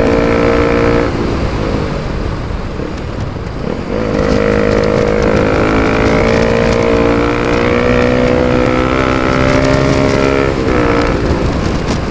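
Bajaj Pulsar RS200's single-cylinder engine running at high speed through a full-system Akrapovic exhaust with no dB killer. The exhaust note eases off for a few seconds near the start, then comes back strong about four seconds in with its pitch slowly rising, and dips briefly near the end.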